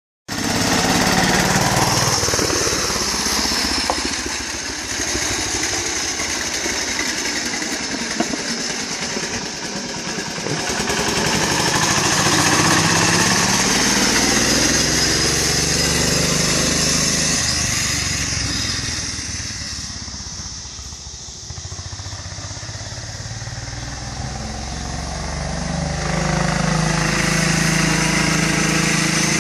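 Engine of a garden tractor built for high speed, running hard as it is driven fast. Its pitch glides up and down and it grows louder and quieter as the tractor passes, moves off and comes back.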